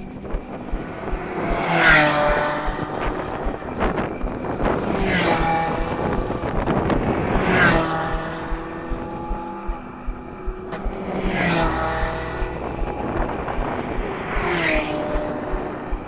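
Ferrari 360 Modena's flat-plane V8 revving hard on track, with five loud surges about three seconds apart. Each surge climbs in pitch to a peak and falls away as the car accelerates and passes.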